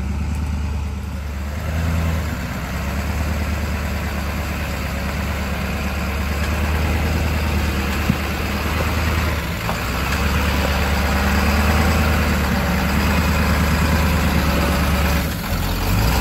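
A 4x4's engine running steadily at low revs with a low, even drone and a constant rushing noise over it. It dips briefly near the end, then comes back a little louder.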